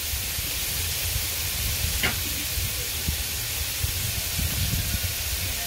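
Beef burger patties sizzling on a hot propane flat-top griddle (Blackstone 22-inch): a steady frying hiss, with a single pop about two seconds in.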